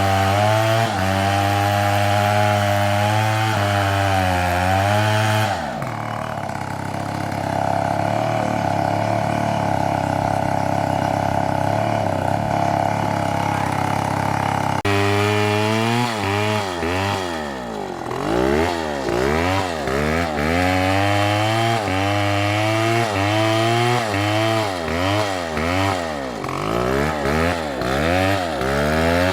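Chainsaw running with its engine revving; from about halfway in, the pitch swings up and down over and over, roughly once a second.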